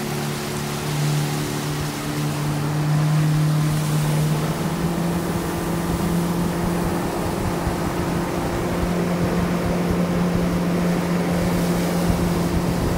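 Motorboat engine running steadily underway, with the rush of wind and water. Its pitch rises slightly about four seconds in.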